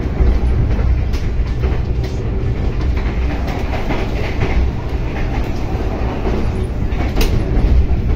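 Passenger train coach running on the rails, heard from inside: a steady heavy low rumble of the carriage, with a few light ticks and one sharp click about seven seconds in.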